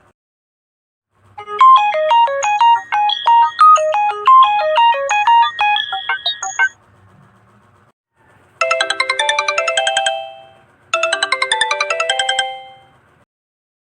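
Smartphone ringtone: a bright tune of quick, hopping synthesized notes lasting about five seconds. After a short pause comes a different ringing pattern, a fast rippling run of notes that sounds twice, each about a second and a half long.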